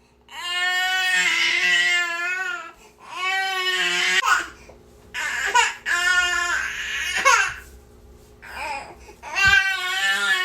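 Baby crying: a string of about six wailing cries, each lasting up to about two seconds, with short breaks between them.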